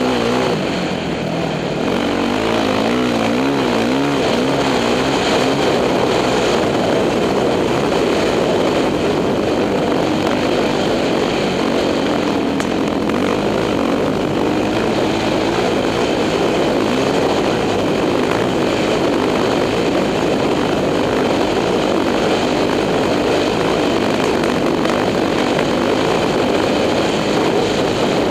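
2006 Yamaha YZ450F's single-cylinder four-stroke engine running under load as the dirt bike is ridden along a sandy trail. Its pitch rises and falls with the throttle a few seconds in.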